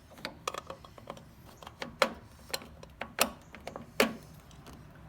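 Irregular sharp clicks and knocks of small parts and tools being handled, about ten in all, the loudest about two seconds and four seconds in.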